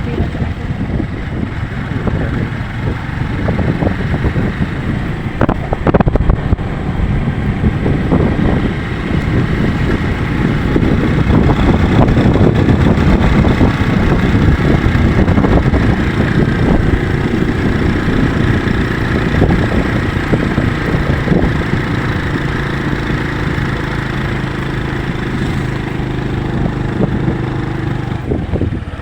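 Strong sea wind buffeting the microphone: a loud, gusty low rumble that swells and eases. A steady low hum joins in over the last several seconds.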